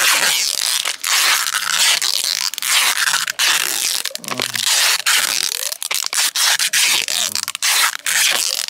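Kraft-paper mailing envelope crinkling and crackling as it is folded and pressed round a tree trunk, mixed with packing tape tearing off its roll as it is wound on to hold the envelope tight.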